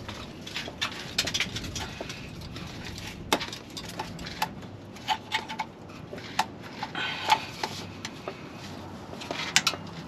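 Irregular metallic clicks, clinks and knocks of a transmission shifter cable being tugged and worked out of its bracket under a van, a few sharper knocks standing out.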